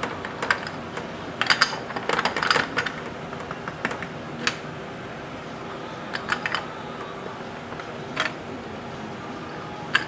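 Light clicks and clatters of metal and plastic carburetor parts being handled and fitted together on a motorcycle carburetor bank, in scattered bunches of a few quick taps.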